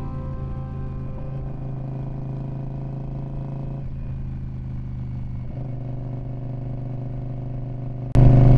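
Indian Scout Bobber's V-twin engine running at a steady cruising speed on the move. It suddenly gets much louder shortly before the end.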